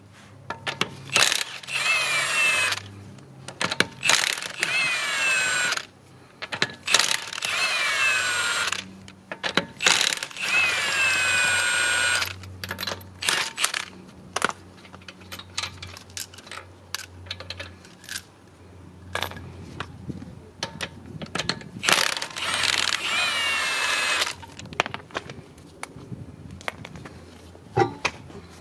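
Cordless impact wrench hammering the lug nuts off a car's rear wheel in five bursts of about two seconds each, each opening with a falling whine. Short clicks of loose lug nuts come between the bursts, and a knock sounds near the end as the wheel comes off the hub.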